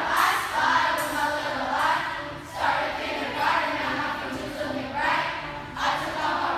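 A large group of children rapping and singing together in unison over a backing track.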